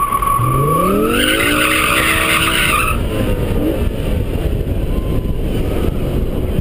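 Car driving with heavy wind and road rumble on an outside-mounted camera. For the first three seconds the tyres squeal and then screech, while the engine revs up in a steadily rising pitch. After that mostly wind and road noise remain.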